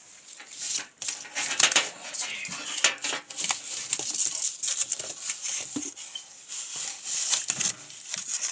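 Pieces of corrugated cardboard being handled and shifted over each other and the tabletop: an irregular run of scrapes, rustles and light taps.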